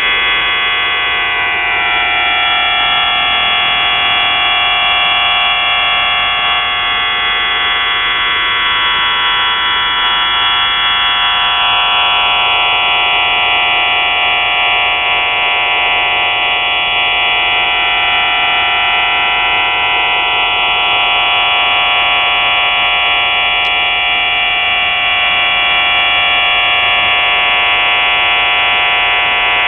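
Shortwave radio receiving a signal on 4632 kHz: a loud, steady buzz of many tones at once, with slow sweeping fades drifting through it. There is one brief click near the end.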